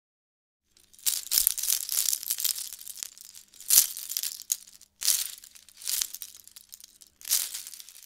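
Jewelry chains and small metal pieces jingling and rustling. A continuous shake starts about a second in, then comes one sharp clink, then three shorter bursts of jingling.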